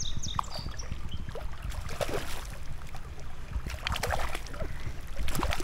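A hooked rainbow trout thrashing and splashing at the surface of a shallow creek as it is played toward the net, several splashes over a steady low rumble and running water.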